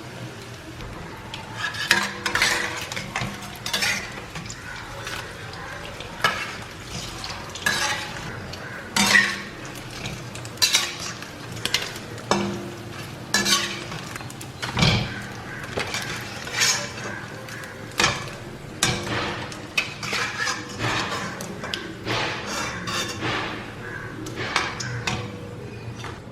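Battered boiled-egg halves frying in hot oil with a steady sizzle, while a metal utensil clinks against the pan and bowl every second or two.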